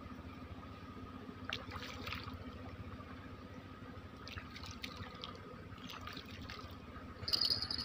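Water splashing and dripping in a few short spells at the edge of a river. Near the end an insect starts a loud, high, steady trill.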